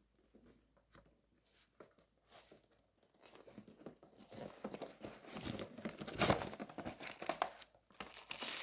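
Packaging crinkling and rustling as a phone box is unpacked by hand: faint scattered clicks at first, then crinkling that grows louder from about three seconds in.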